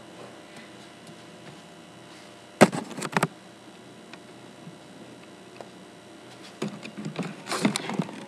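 Knocks, clatter and rustling right at the microphone as the webcam is handled: a short burst about two and a half seconds in and a longer one near the end, over a faint steady hum.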